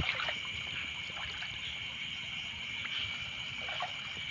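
Night chorus of insects and frogs by a river: a steady shrill trilling, with a few faint knocks or splashes of water over it.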